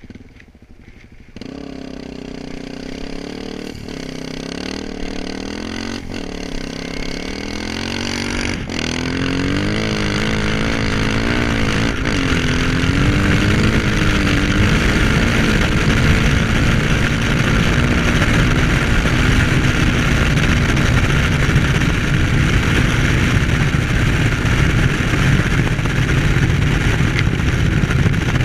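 Dirt bike engine pulling away hard and winding up through the gears, its pitch rising and dropping back at each of about three shifts in the first nine seconds. It then holds at high speed under a growing rush of wind noise.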